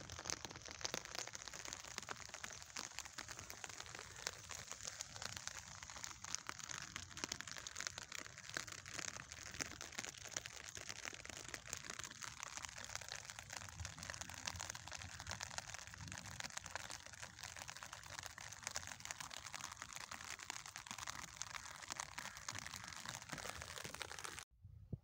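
Steady rain pattering, a dense crackle of fine drops, cutting off abruptly near the end.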